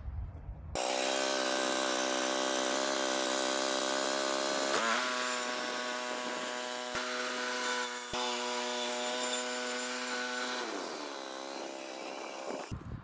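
Woodland Mills portable bandsaw sawmill cutting through an old pole: a steady, high whine with many overtones that starts suddenly about a second in, rises a step in pitch about halfway, then sags and cuts off shortly before the end.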